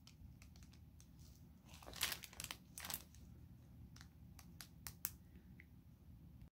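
Faint crinkling of a cat toy's clear plastic packaging bag as it is handled: a few short crinkles and sharp clicks, mostly about two to three seconds in.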